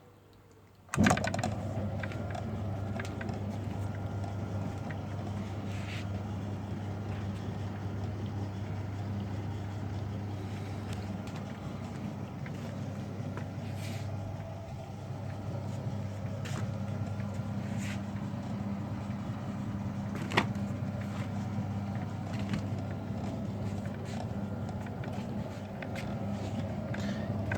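Kiddie ride train's electric drive motor starting suddenly about a second in and running with a steady hum as the ride moves, with a few light knocks from the mechanism. The ride has no sound unit, so the motor and mechanism are all that is heard.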